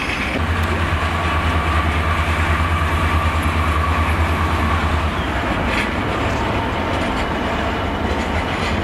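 Class 66 diesel freight locomotive running as it approaches slowly: a deep, pulsing engine throb that eases off about five seconds in, over the noise of wheels on the rails.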